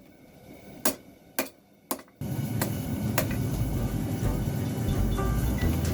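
Three hammer blows on steel at the anvil, about half a second apart. About two seconds in, a much louder, dense sound cuts in suddenly and continues.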